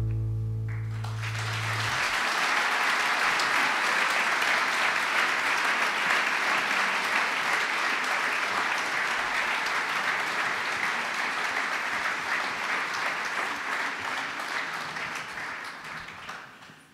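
Audience applauding in a hall, starting about a second in as the last low note of the song dies away, and fading out near the end.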